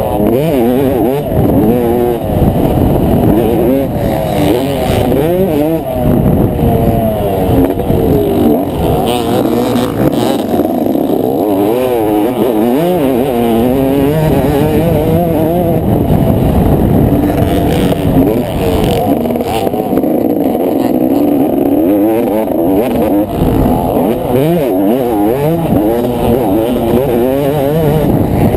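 Motocross bike engine heard close from a camera on the bike, revving up and falling back over and over as the rider accelerates and shifts along the track.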